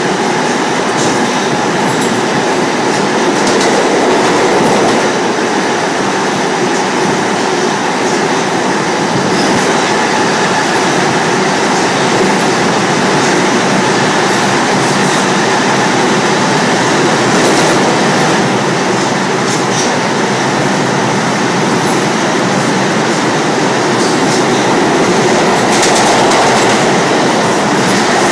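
New York City subway train running fast through a tunnel, heard from the open gangway between two cars: a loud, steady rush of steel wheels on rails with rattling clatter and a few brief high-pitched wheel squeals.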